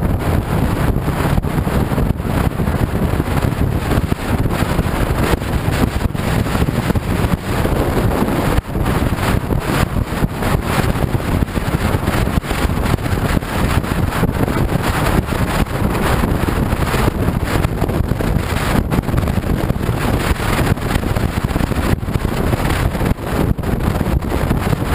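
Heavy wind noise buffeting the microphone of a camera riding on a moving scooter, with the scooter's engine and road noise running beneath it.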